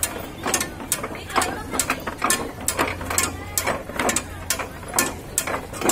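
Plastic playground rocking ride creaking as a small child rocks on it, one short creak at each swing, about twice a second.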